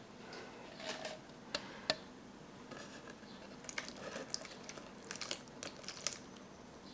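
Water pouring from a plastic jug into a U.S. MRE flameless ration heater bag around the food pouches, a quiet trickle with scattered soft crinkles and clicks from the plastic bag.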